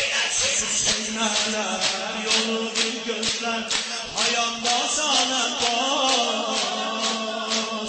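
A man chanting a mourning lament into a microphone, over a steady percussive beat of about two strikes a second.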